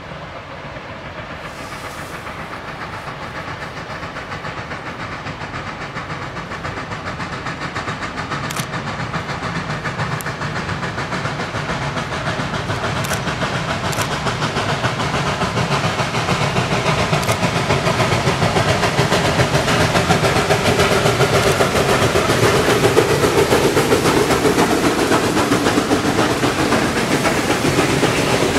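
Steam locomotive hauling a freight train, its exhaust and running noise growing steadily louder as it approaches and passes close by. The freight cars then roll past.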